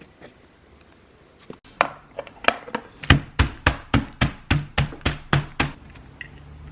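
Knife chopping food on a cutting board: a few uneven cuts, then a quick steady run of about ten chops, three to four a second, each with a dull knock of the board, stopping a second before the end.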